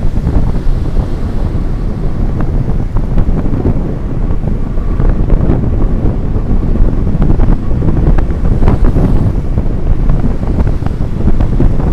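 Wind buffeting the microphone on a moving motorcycle, over a steady low rumble of engine and road noise.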